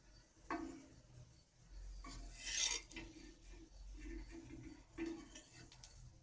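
Steel spatula scraping across a dry tava griddle as it slides under dal vadas to turn them: a few short metal-on-iron scrapes, the longest and loudest about two seconds in, with light clinks about five seconds in.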